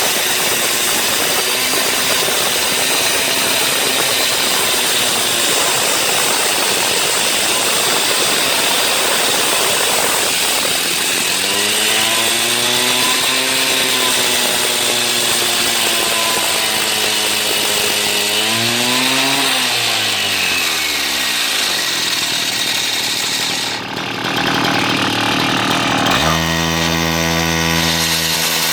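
Petrol-engined power equipment running hard with a loud, gritty noise from work on the pool's concrete. Its engine pitch sags and then drops away about two-thirds through. Near the end a steady, low engine hum takes over.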